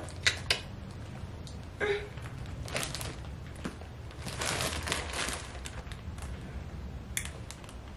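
Faint handling sounds: a few light clicks and a soft rustle about four to five seconds in, over a low steady hum.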